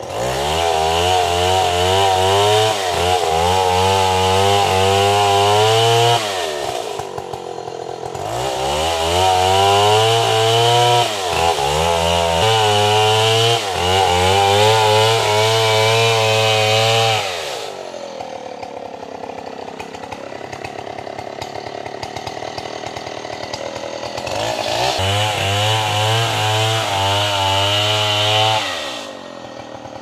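Chainsaw cutting into the trunk of a large tree: the engine revs high under load in three long bursts, dropping back to a low idle between them, with the longest idle in the middle.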